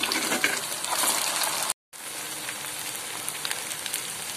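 Sago-and-potato vadai deep-frying in hot oil in a pan: a dense crackling sizzle. It cuts out for a moment a little under two seconds in, then the sizzle carries on, steadier and slightly quieter.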